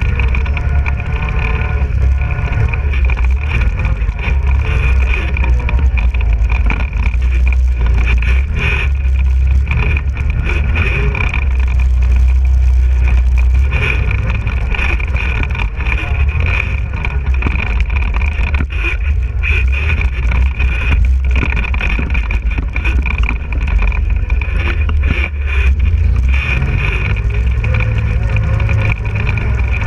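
ATV engine running steadily under load as the quad rides over rough ground, with a deep rumble and scattered knocks and rattles from the bumps.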